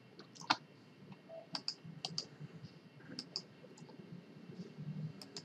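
Computer mouse and keyboard clicks: about half a dozen short, separate clicks spread unevenly over a few seconds.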